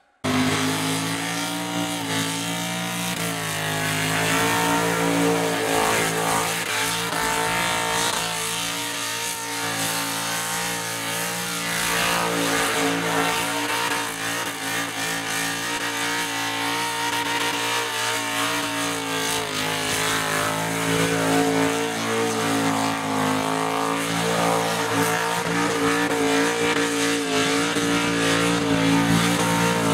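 Car doing a burnout: its engine is held at high revs while the spinning tyres hiss, steady for long stretches with small rises and dips in pitch. It starts suddenly just after the beginning.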